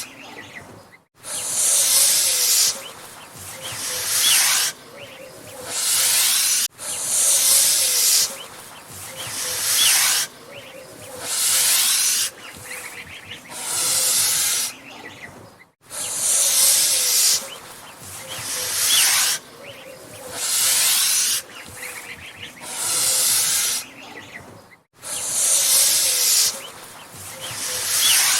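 Angry goose hissing: loud, breathy hisses about a second long, repeating roughly every two seconds with short pauses between them.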